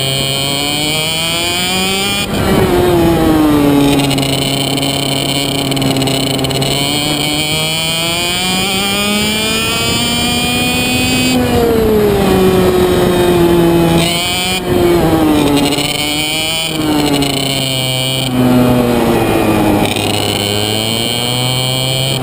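IAME Reedster KF1 two-stroke kart engine at full racing pace, its pitch climbing steadily through the straights and falling sharply several times as the throttle is lifted for the corners.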